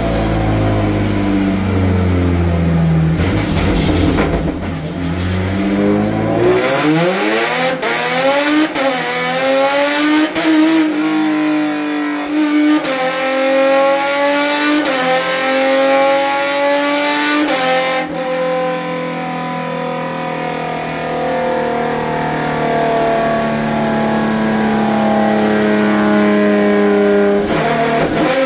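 Hyundai Genesis Coupe race car's 3.8-litre V6 running on a chassis dyno. It runs low for several seconds, then climbs in pitch through the gears with sudden dips where the sequential gearbox shifts, and holds a steady speed for the last ten seconds.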